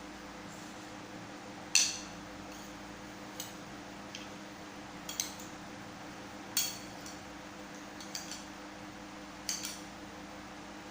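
Metal cutlery clinking against dishes during a meal: about six separate sharp clinks a second or so apart, over a steady low hum.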